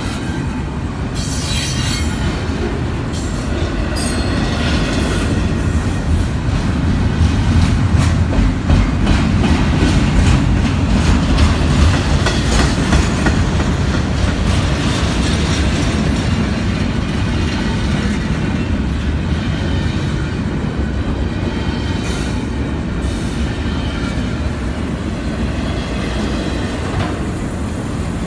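Double-stacked container well cars of a freight train rolling past close by: a steady rumble of steel wheels on the rails with rapid clicking over rail joints, swelling a little in the middle.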